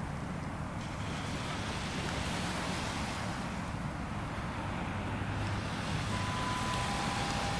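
Low, steady engine drone of a Caledonian MacBrayne car ferry manoeuvring off the pier, heard across open water under a steady hiss of wind on the microphone. Two short, steady whistle-like tones sound near the end.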